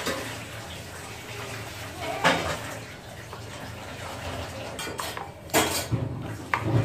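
Metal spoon clinking against a ceramic bowl while stirring flour and water into a thin paste, with several sharp clinks, the loudest about two seconds in and again past halfway. Water is poured into the flour at the start.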